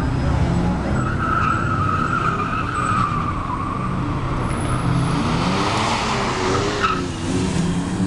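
Mazda Miata's four-cylinder engine pulling hard through an autocross course, its pitch rising and falling with the throttle, while the tires squeal on wet pavement through the corners. There is a long squeal in the first few seconds and another that cuts off suddenly about seven seconds in.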